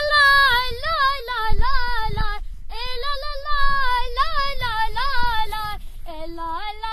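A high voice singing an ornamented melody in phrases, bending and wavering on its held notes, with no instruments heard.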